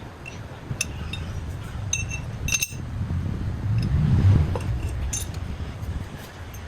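Light metallic clinks of small steel pieces being handled, about eight short ringing taps spread over the few seconds, over a low rumble that swells near the middle.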